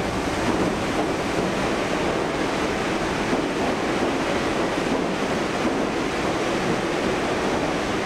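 New York City Subway 6 train running through Brooklyn Bridge/City Hall station without stopping: a steady, even rumble of the cars passing by at speed on the local track.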